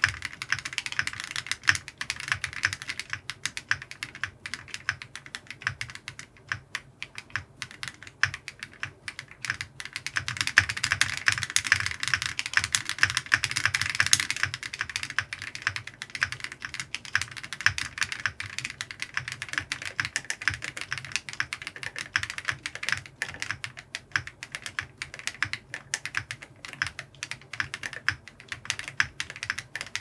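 Typing at a normal pace on a Zoom75 EE mechanical keyboard with WS Morandi switches, with no PCB or case foam fitted: a steady run of key clacks. The typing gets denser and louder for a few seconds around the middle.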